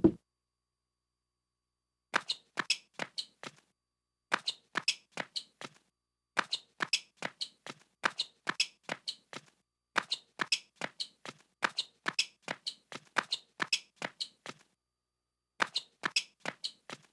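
Cartoon sound effect of light, quick taps in short runs of about four to six, roughly three or four taps a second, with brief pauses between runs; it starts about two seconds in.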